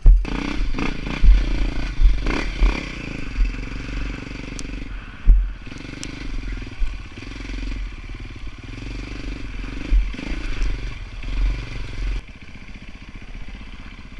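KTM dirt bike engine running at low speed, blipped up and down while picking over rough rock, with repeated knocks and clatters from the bike bouncing over the rock. The loudest knock comes about five seconds in. Shortly before the end the jolting stops and the engine runs on more quietly and steadily.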